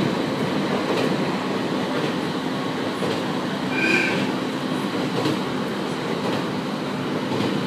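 701 series electric train running on the rails: a steady rolling rumble with a clack from the rail joints about once a second, and a brief high tone about four seconds in.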